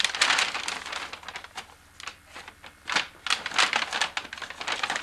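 Paper and packaging rustling and crinkling in irregular bursts as a gift is handled and unwrapped, loudest at the start and again about three seconds in.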